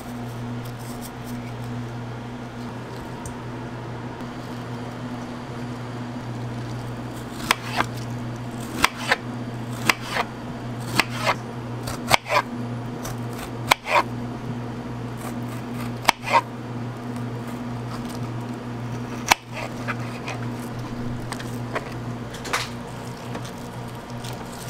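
A knife slicing through a peeled kiwi and striking the cutting board: about a dozen sharp knocks, roughly a second apart, starting about a third of the way in and stopping shortly before the end. A steady low machine hum runs underneath.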